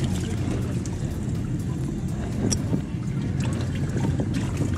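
Water splashing and trickling in a bass boat's livewell as a bass is lifted out by hand, over a steady low rumble.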